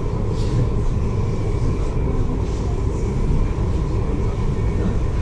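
Steady, loud low rumble of a large vehicle in motion, with faint voices in the background.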